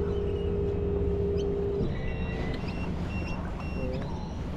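Outboard motor of a rigid inflatable boat running at low speed, a steady low rumble with a steady whine that cuts off about two seconds in as the boat is eased up to the beach.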